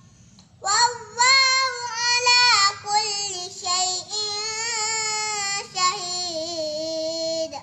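A young boy chanting a Quran recitation (tilawat) in a high voice, in long melodic phrases with bending, held notes. It starts about half a second in and ends on one long held note.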